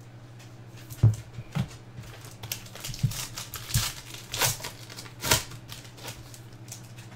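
Clear plastic card wrapper crinkling and crackling as it is pulled off a baseball card by hand. A few sharp handling knocks come in the first seconds.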